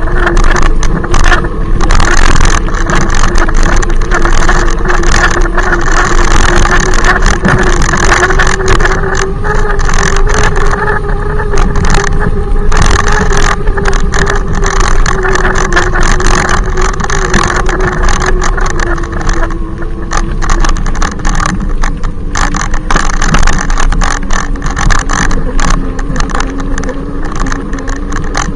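Hub motor of an e-bike riding close behind, whining steadily and loudly; the pitch rises a little midway and eases back down near the end. Heard over constant rushing, crackling noise.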